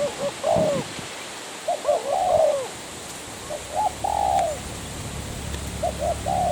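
Spotted dove cooing: four repeated phrases, each a couple of short coos followed by a longer drawn-out one.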